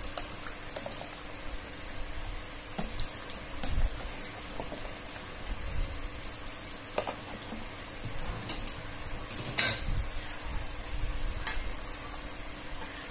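Potato wedges being scooped with a spatula into a pot of simmering chicken curry: scattered clicks and knocks of the spatula against the container and pot, the loudest a little before ten seconds in, over the steady sizzle of the simmering curry.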